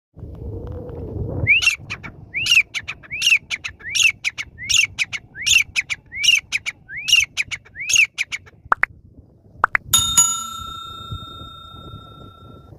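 Grey francolin calling: a run of about ten loud, arching notes repeated evenly, roughly one every three-quarters of a second. About ten seconds in, a bright electronic chime starts suddenly and rings on steadily for a few seconds.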